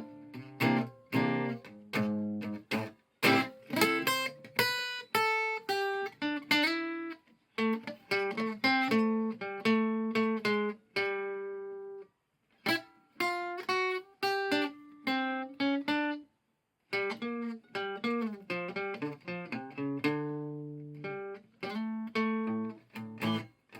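A.B. Manson "Merlin" plucked string instrument played acoustically, with no amplifier: a melody of picked notes and chords, each ringing and dying away, with two short pauses near the middle.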